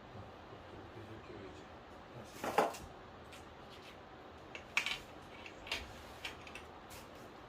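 A few separate light clicks and clatters of hard parts being handled, the loudest about two and a half seconds in.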